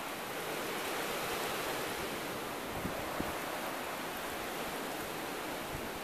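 Wind blowing in a steady rush, with occasional low buffets on the microphone.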